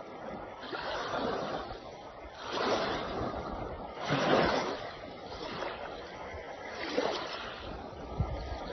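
Waves washing in, a rushing noise that swells into louder surges about every two seconds.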